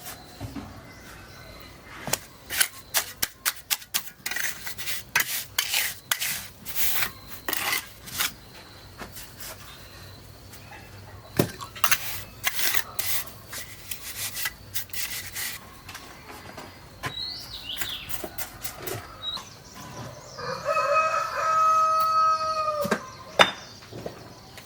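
A rooster crows once, a long held call near the end, after a run of sharp clicks and knocks.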